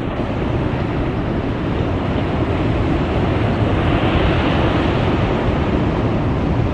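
Steady roar of wind and breaking ocean surf, with wind buffeting the microphone.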